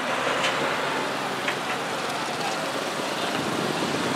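Heavy Leyland truck running as it pulls away along a dirt track, a steady even rushing noise.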